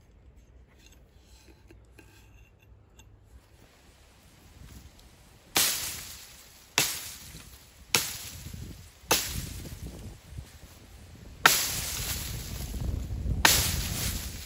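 A hatchet swung into leaf-littered ground, six sharp chopping blows about a second or two apart, starting about five seconds in after faint handling ticks.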